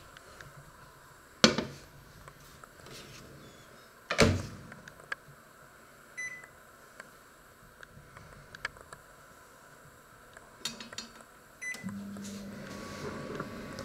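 Panasonic microwave oven being loaded and started: a sharp knock, then the door thumping shut, two short keypad beeps a few seconds apart and a few small clicks as the timer is set, and near the end the oven starts running with a steady hum.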